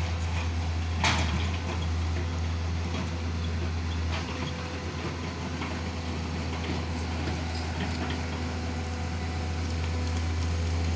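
Hydraulic excavator's diesel engine running steadily while it works, its note shifting slightly about four seconds in, with one short clank about a second in.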